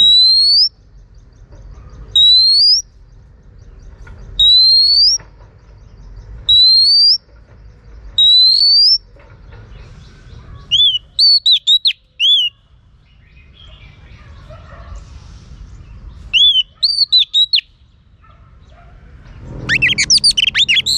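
Female oriental magpie-robin calling. A single loud rising whistle is repeated about every two seconds. Then come short clusters of quick, sharp notes, and near the end it breaks into loud, varied song.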